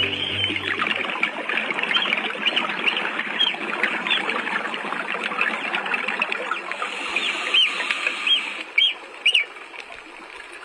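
Dugongs calling underwater: a stream of short, high chirps that sweep up and down in pitch, heard over a steady crackling underwater noise. A few louder, clearer chirps come near the end.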